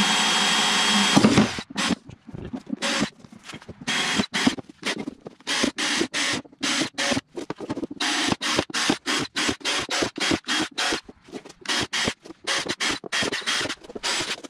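Cordless drill boring holes through a plexiglass sheet: one longer run at the start, then a rapid string of short drill bursts, two or three a second, as hole after hole is drilled.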